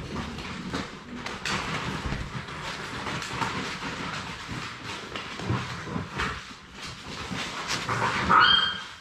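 Six-week-old Labrador retriever puppies scrambling about on a hardwood floor: claws clicking and skittering, with bumps and scuffles as they play. Near the end, one short high-pitched puppy yelp, the loudest sound.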